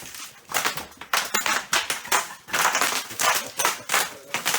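Footsteps crunching on litter and debris underfoot, a sharp crackle with each step, about two steps a second.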